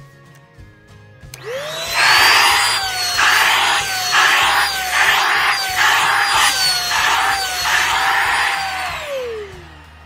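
Shark Rocket hand vacuum switched on about a second in. Its motor spins up to a high whine and runs with a loud suction rush that swells and dips as the crevice tool works the carpet. Near the end it is switched off and winds down.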